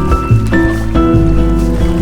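Bossa nova background music with a walking bass line and sustained chords.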